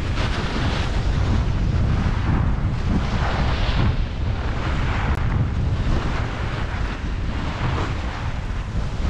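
Wind buffeting the microphone of a skier moving downhill, with the hiss of skis scraping over the snow swelling and fading about once a second as the skier turns.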